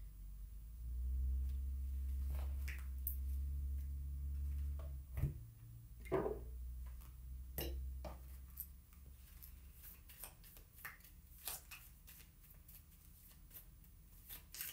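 Tarot cards being handled and shuffled: scattered soft clicks, taps and rustles of the card stock. A low rumble with a faint hum runs under the first few seconds, then stops.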